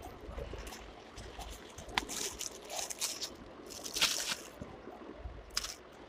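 Handling noise: a hand rubbing and brushing against cloth close to the microphone, an irregular run of soft rustles and scrapes with a few sharper swishes about two and four seconds in.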